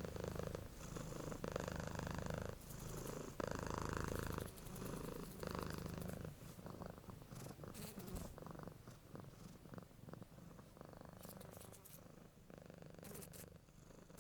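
A cat purring, a low rumble that swells and eases about every two seconds. It is strongest in the first half and softer after about six seconds, with a few faint clicks.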